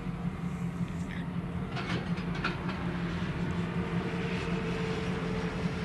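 Two diesel locomotives running as they pull a single tank car, with a steady low engine hum and a few faint high squeaks about two seconds in.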